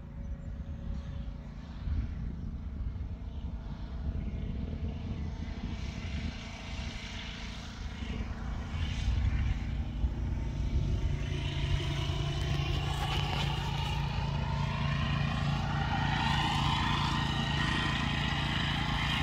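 Distant engine drone from a Suzuki Carry mini truck and the tow-behind rough-cut mower it is pulling across a field. The drone grows louder about halfway through as the rig comes nearer, and its pitch shifts a little.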